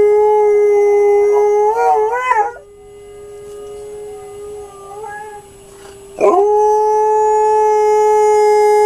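Alaskan Malamute howling: one long, steady howl wavers up and down and breaks off about two seconds in. After a few seconds of much softer sound, a new howl swoops up sharply about six seconds in and holds steady.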